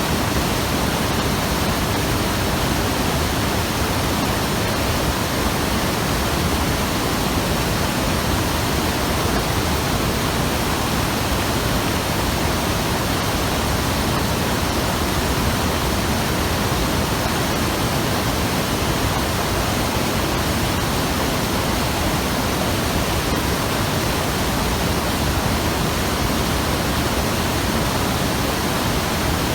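Mountain river rushing steadily over rocks: a loud, even roar of fast water.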